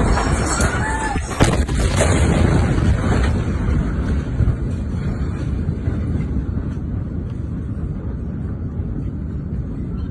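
Loud, deep rumbling roar with a single sharp crack about a second and a half in, then slowly dying down: the blast noise of a massive explosion.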